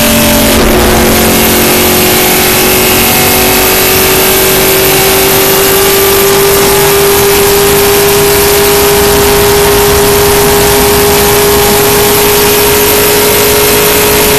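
Stock car V8 at full throttle, heard from inside the cabin: a loud, steady engine note under wind and road noise. The note changes about half a second in, then climbs slowly as the car accelerates.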